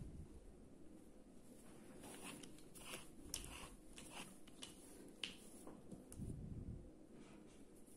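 Faint handling sounds of hands drawing a blunt needle and cord through crocheted cord stitches: soft rustling with scattered small sharp clicks, and a soft low thud a little after six seconds.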